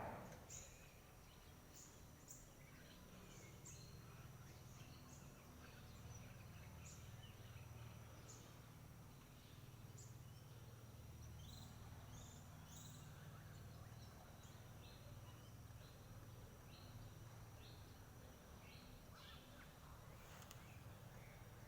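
Faint outdoor ambience: many short, high chirps scattered throughout over a steady thin high-pitched insect tone and a low hum, with one sharp click at the very start.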